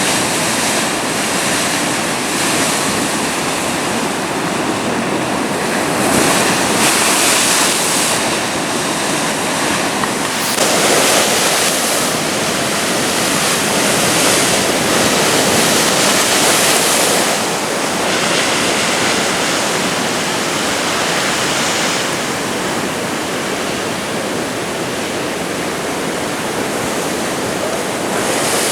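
Atlantic ocean surf breaking on a beach: a continuous wash of water that swells and eases every few seconds as waves come in.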